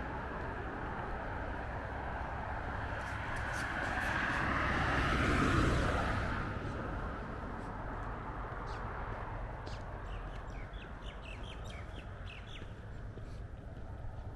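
A car passes on the street, growing louder to a peak about five seconds in and then fading away. From about ten seconds in, birds chirp in a quick series.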